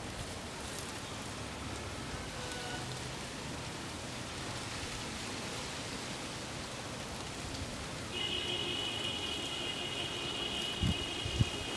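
Steady hiss of wind outdoors, with a steady high whistling tone of several pitches coming in about two-thirds of the way through, and low wind rumbles on the microphone near the end.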